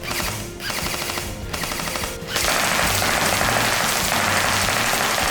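Airsoft gun firing full-auto: three short bursts, then one long continuous burst from a little under halfway in.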